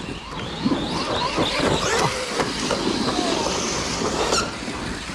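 Several large-scale electric RC cars racing on a dirt track, their motors whining up and down in pitch as the drivers work the throttle, over a dense rushing noise.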